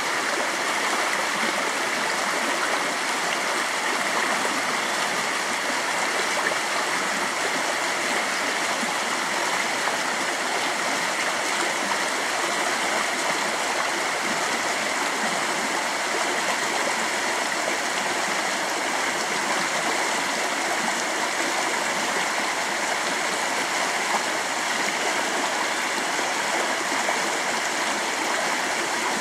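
A rocky stream rushing over small cascades and a low waterfall, a steady, even splashing.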